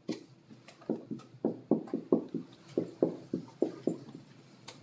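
Dry-erase marker writing on a whiteboard: a quick run of short strokes, about three a second.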